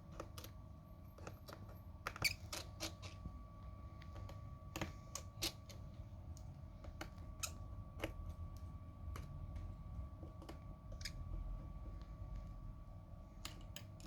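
Faint, irregular small clicks and taps of precision tools working on an iPhone's internal screws and bracket, over a low steady hum.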